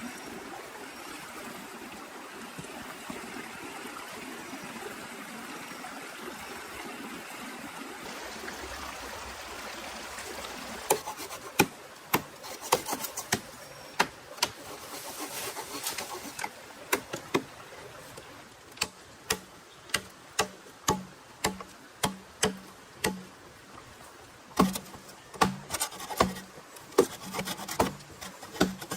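Steady rain, then from about eleven seconds in a run of sharp wooden knocks, one or two a second, over the rain.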